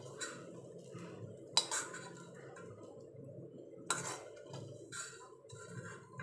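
Stainless steel spoon clinking and scraping against a metal kadai as cooked bitter gourd fry is stirred and scooped: a few sharp clinks, a second or two apart, over a low steady hum.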